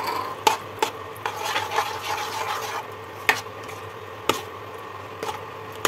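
A spatula stirring a thin, watery curry in a nonstick kadhai, with soft scraping and a few sharp clacks as it knocks against the pan.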